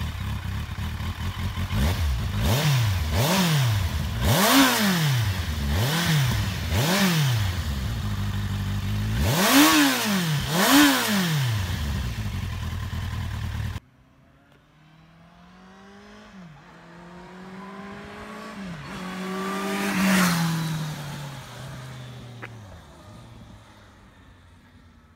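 Kawasaki Z800e inline-four with a Termignoni exhaust idling and revved in about seven sharp throttle blips. Then, after a cut, the bike accelerates up through several gear changes, passes at its loudest, and fades away down the road with falling pitch.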